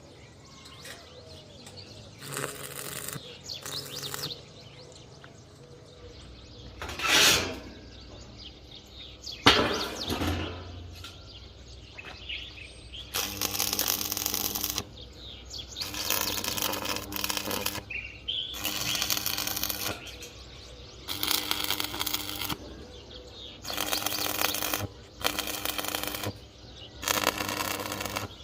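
Arc welding in short bursts, about seven crackling welds of a second or two each, tacking iron bars together. Two louder single knocks come in the first half.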